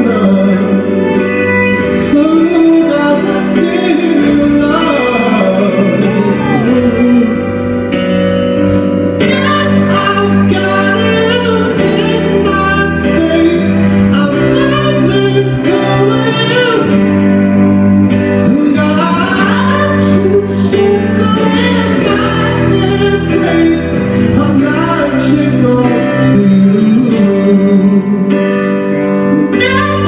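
Live acoustic pop performance: a male singer singing into a microphone over guitar accompaniment, heard from the audience.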